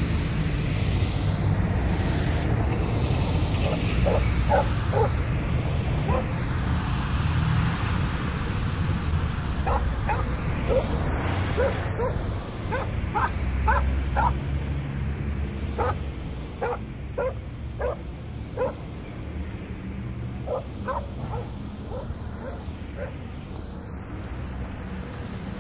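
A dog barking in short, sharp yaps, in several bursts of three to six, over a steady low rumble.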